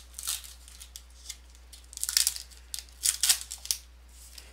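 Foil trading-card pack wrapper being torn open and crinkled by hand, in three short bursts, the loudest about two and three seconds in.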